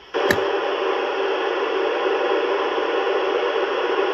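A click, then steady FM receiver static hiss from a ham radio tuned to the ISS cross-band repeater's 437.805 MHz downlink, with no signal coming through.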